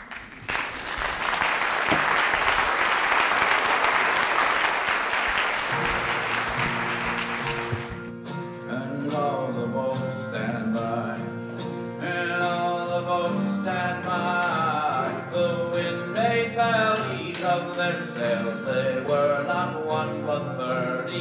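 Audience applauding for about eight seconds. Then a song begins: a voice singing over picked string instruments and sustained low notes.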